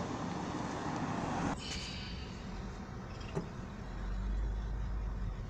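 Car driving, heard from inside the cabin: steady road and engine noise, louder for the first second and a half, then lower. There is a light click a little past three seconds, and a low rumble swells about four seconds in.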